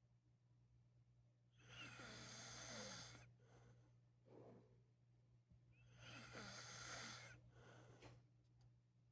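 A sleeping person snoring faintly: two long, noisy snoring breaths about four seconds apart, with a weaker breath between them, over a steady low hum.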